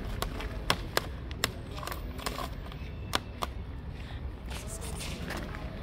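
Scattered sharp clicks, about six of them and mostly in the first three and a half seconds, over a steady low background rumble.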